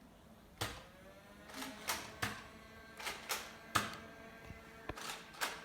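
Nerf foam-dart blasters firing: about ten sharp clicks and knocks at irregular intervals.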